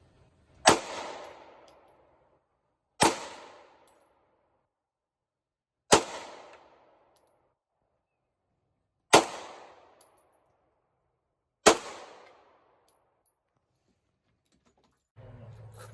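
Five single gunshots, a few seconds apart, each with a short ringing echo that dies away within about a second.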